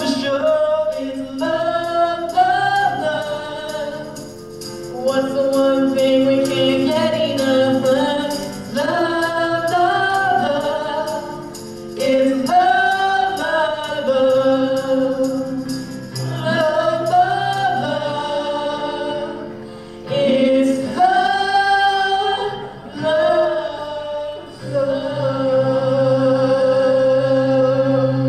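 Singers and band performing a musical-theatre song live, the voices singing phrases over the accompaniment and closing on a long held note near the end.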